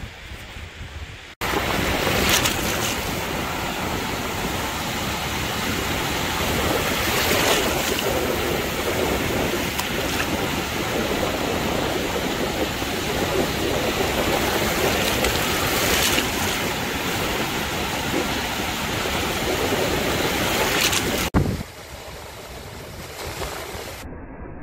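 Small waves breaking and washing up the beach: a steady rush of surf that swells louder now and then. It jumps louder about a second in and drops suddenly near the end.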